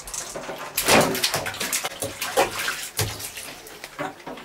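Water splashing and sloshing in a stainless steel sink as two toddlers sit and play in it, in irregular bursts, loudest about a second in.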